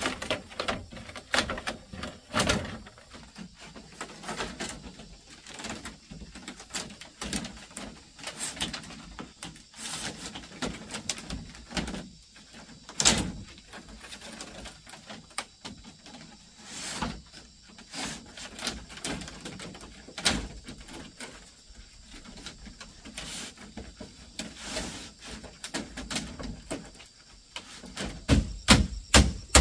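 Irregular knocks and clatters of bamboo and wood being handled and struck during building work. A few sharper strikes stand out, one about 13 seconds in, another about 20 seconds in, and a quick cluster of hits near the end.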